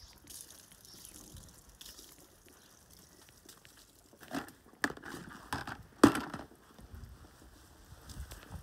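Water splashing and dripping as a soaking-wet, shampooed Bernese mountain dog is washed with a soapy sponge. Quiet for the first few seconds, then a run of short splashes and knocks, ending in one sharp knock about six seconds in.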